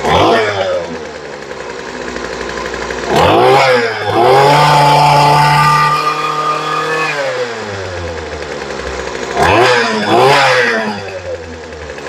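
Poulan Pro string trimmer's two-stroke engine idling and revved by the throttle: a quick blip at the start, a rev up held high for about three seconds in the middle, then two short blips near the end. It runs cleanly on a freshly fitted carburetor after the low-speed mixture screw was turned out for more fuel.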